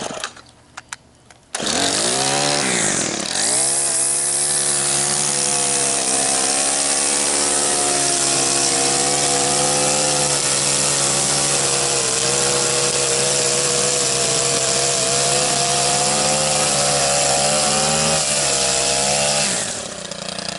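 Gas string trimmer engine revving up to full throttle about a second and a half in, then running at high speed while it cuts tall, thick grass, its pitch wavering slightly under the load. The throttle is let off near the end and the engine drops back toward idle.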